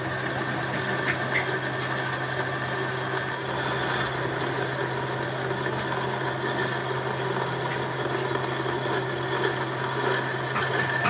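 Manual metal lathe running steadily while a boring tool cuts inside the bore of the spinning metal workpiece: a constant motor hum under a continuous cutting noise, with a few faint clicks.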